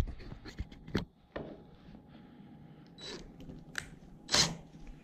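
Power drill driving a wood screw into a door board in short bursts, about three and four and a half seconds in, after a few light clicks of handling. The screw has hit a knot in the board and is being run in deeper.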